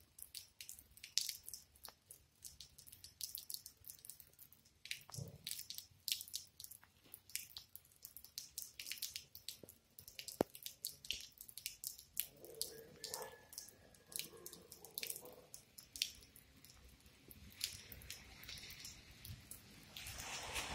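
Water dripping in irregular drops, sharp little splashes several a second, from rain on a soaked forecourt. A faint distant hum joins in about the middle.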